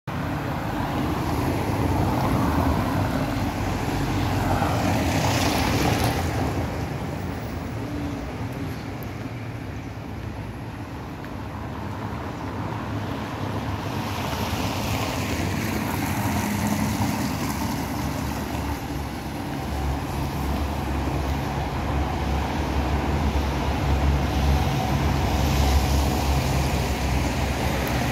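Wind blowing across the microphone, a steady low rumble over outdoor ambience, with a brief hiss about five seconds in. The rumble gets heavier in the last several seconds.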